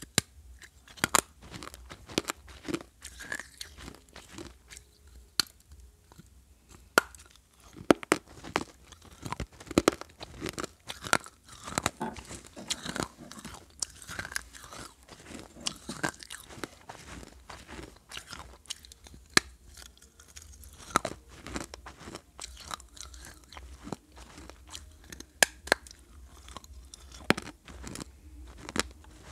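Close-miked crunching and chewing of shards of an unglazed terracotta clay pot. Many sharp, irregular cracks sound as the fired clay is bitten and ground between the teeth.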